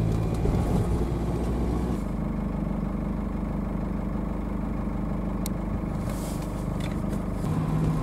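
GAZ Sobol 4x4 van engine running steadily while driving, its note shifting about two seconds in and again near the end.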